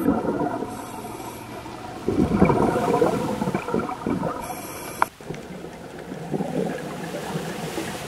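Scuba regulator exhalation heard underwater: bubbles gurgling and rumbling in long bursts, one breath after another, with a sharp click about five seconds in.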